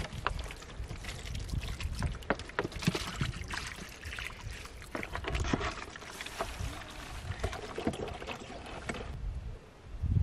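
Water from a hose pouring and gurgling into a plastic soda bottle, with irregular clicks and knocks from the thin plastic bottle as it is held and handled; it quietens near the end.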